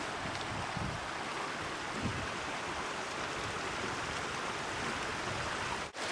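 Steady rushing of a creek's flowing water, which cuts out for a moment near the end.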